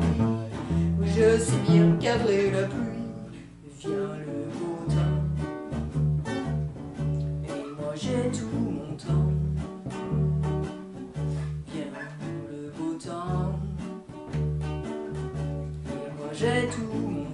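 Two acoustic guitars strummed and picked together in a steady rhythm, with a voice singing over them in the first few seconds and again near the end.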